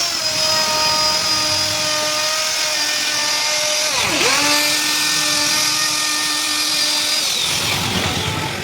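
An electric rotary carving tool's motor whines at high speed as it cuts a decorative pattern into wood. About four seconds in its pitch dips sharply under load and recovers. Near the end the whine winds down as the motor is switched off.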